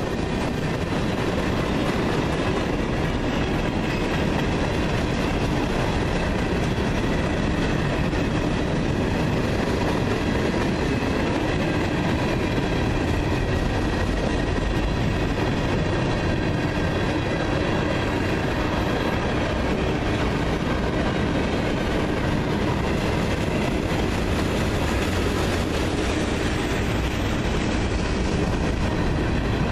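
Freight train's mixed cars (tank cars, boxcars, covered hoppers) rolling past: a steady rumble and rattle of steel wheels on the rails.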